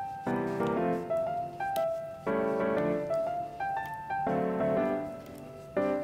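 Background piano music: a chord about every two seconds, with single melody notes fading in between.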